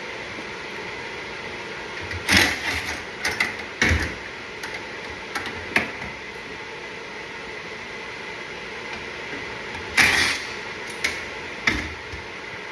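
A handful of sharp knocks and short clatters from tools and parts being handled during HVAC installation work, in bunches early on and again toward the end, over a steady background hum.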